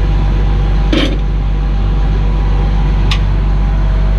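An engine running steadily at idle, with two short, sharp clicks: one about a second in, the other about three seconds in.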